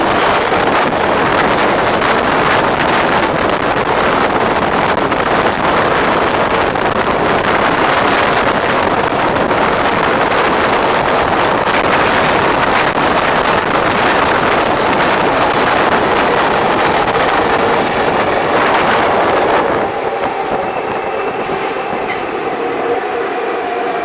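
Siemens-AEG Athens Metro Line 1 train running on the track, a loud steady rumble. About 20 seconds in it grows quieter and a few steady whining tones come up.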